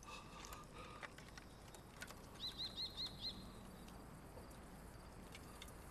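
A bird chirping: five quick, high notes in a row about two and a half seconds in, over faint outdoor ambience.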